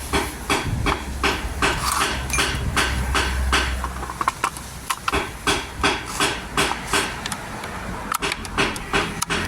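Repeated hammer blows, about three a second in an even rhythm, with a low hum beneath for the first four seconds.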